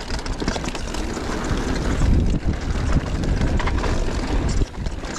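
Wind rushing over the microphone as a mountain bike descends a rough trail, with a steady clatter of knocks from the tyres and frame over roots and rocks.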